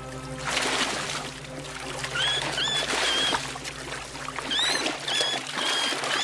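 Japanese macaques splashing and thrashing in hot-spring water, with several short, high squeaky calls from the monkeys.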